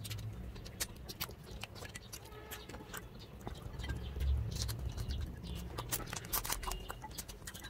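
Close-miked mouth sounds of two people eating fried shrimp and fish with their fingers: wet chewing and lip smacks in irregular sharp clicks, with a low thump about four seconds in.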